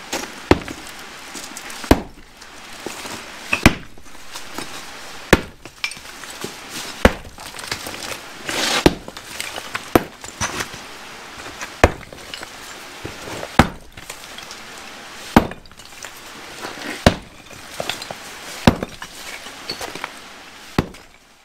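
Sledgehammer striking concrete blocks and breaking them apart: about a dozen heavy blows, one every second and a half or so, with broken pieces clinking and rattling between strikes. Near the middle, a longer crumbling rattle as pieces break away.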